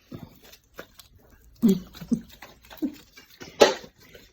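Boxer dog chewing and mouthing basil leaves: irregular wet chewing clicks and smacks, a few short low sounds, and one louder sharp noise about three and a half seconds in.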